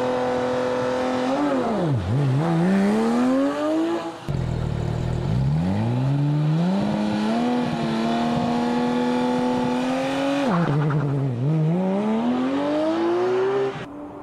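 Sports car engine accelerating hard, its pitch climbing and then dropping back sharply at gear changes, with an abrupt jump in the sound about four seconds in.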